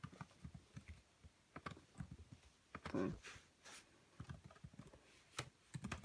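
Typing on a keyboard: faint, irregular key clicks.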